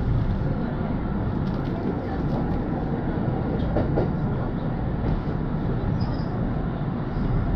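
Kintetsu express train running along the track, heard from inside the front car behind the driver's cab: a steady running rumble of wheels on rails.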